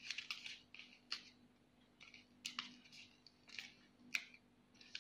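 Sheet of origami paper rustling and crackling under fingers as a fold is pressed and creased: faint soft scrapes with several sharp crackles.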